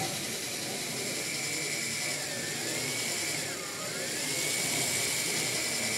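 Small electric motor of a Meccano crawler tractor model whining steadily through its gearbox, with gears whirring. The whine's pitch sags twice near the middle, the second dip deeper, before settling back to its steady note.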